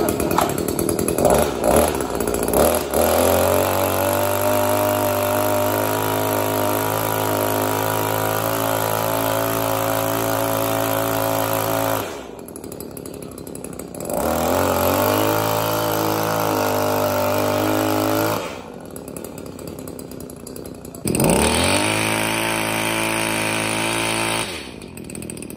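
Maruyama hedge trimmer's small two-stroke engine pull-started, catching unevenly for a couple of seconds before settling into steady high-speed running. It is then held at high throttle in long stretches, dropping back to a quieter idle three times and revving up again between.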